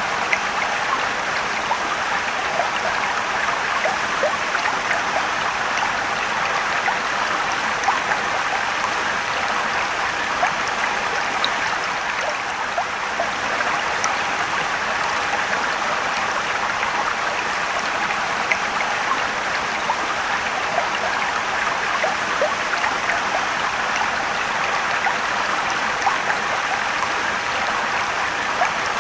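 Mountain stream and waterfall: water rushing and trickling over rocks in a steady wash, with small splashes and drips sounding through it.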